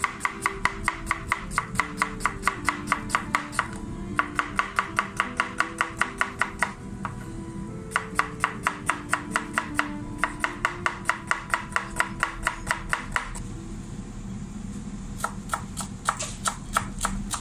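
Chef's knife slicing an onion thinly on a plastic cutting board: quick, even knife strokes, about five a second, in runs of a few seconds with short pauses. Near the end the knife chops parsley. Background music plays underneath.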